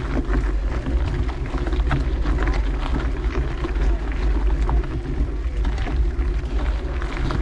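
Mountain bike rolling along a dirt trail: wind buffeting the camera microphone over a steady tyre rumble, with frequent short clicks and rattles from the bike over rough ground.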